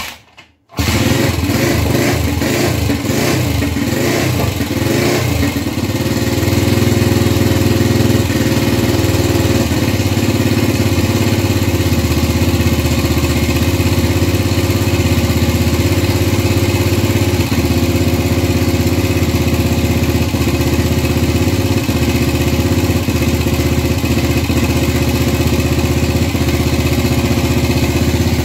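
Gilera 150 Super Sport single-cylinder four-stroke engine, running on an adapted Honda AX 100 carburettor, catches about a second in and runs unevenly for a few seconds before settling into a steady idle. It is a first start on basic timing, with the ignition set almost fully retarded, and it sounds retarded.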